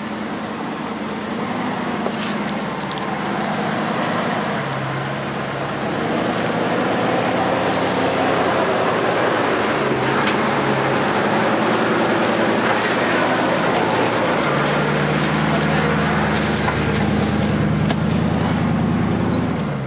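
Jeep Grand Cherokee ZJ's engine working under load as it crawls up a steep, rocky trail, its pitch rising and falling with the throttle. It grows louder as the Jeep climbs closer.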